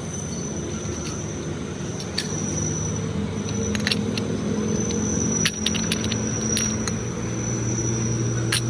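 An engine running steadily, with a high steady whine above it and scattered sharp metallic clicks and clinks, most of them in the middle of the stretch.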